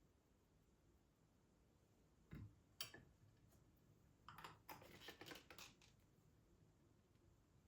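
Near silence with a few faint clicks a couple of seconds in, then a short spell of faint clicking and rustling, like small objects being handled.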